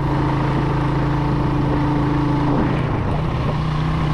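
Motorcycle engine running while riding, with a steady note over a rush of noise; about two and a half seconds in the engine note drops briefly, then steadies again at a slightly different pitch.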